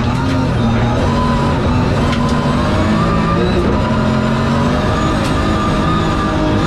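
Onboard sound of a BMW rally car running flat out on a gravel stage: the engine's note steps up and down through the gears as the car slows slightly, over a steady rumble of tyres on gravel. There are a couple of sharp clicks, about two and five seconds in.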